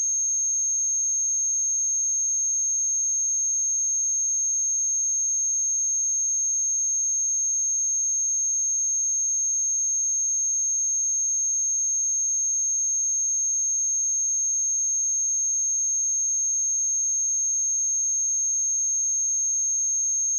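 A steady, high-pitched pure sine-wave test tone at 6432 Hz, held unchanged at constant level.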